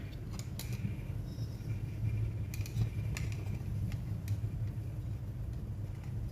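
Steady low hum, with a few light clicks and taps of small laptop parts and screws being handled and fitted.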